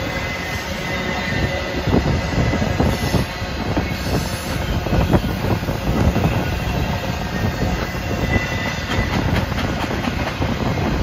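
Double-stack intermodal freight cars rolling past: a steady rumble of steel wheels on the rails with irregular clacks over the rail joints, and a faint high wheel squeal now and then.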